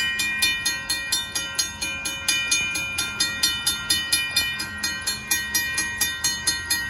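Railroad grade-crossing warning bell ringing in a steady, even rhythm of about three strikes a second, sounding with the flashing lights to warn that a train is approaching.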